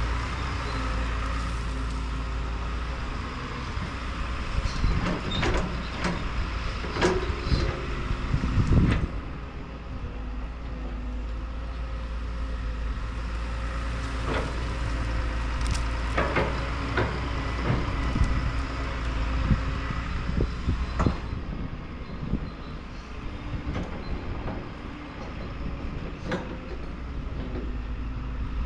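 Crawler excavator's diesel engine running steadily under load while it digs. Sharp knocks and clanks from the bucket working earth and brush come in clusters, about five seconds in and again in the middle.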